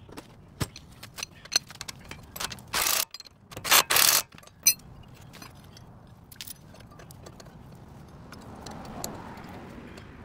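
Metal clinking and rattling of hand tools and car parts being handled during front CV axle work, with two loud half-second bursts of rushing noise about three and four seconds in.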